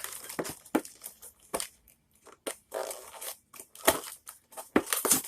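Plastic snack wrapper crinkling and tearing in irregular crackles as a package of individually wrapped breakfast biscuits is opened by hand, with a few louder crackles near the end.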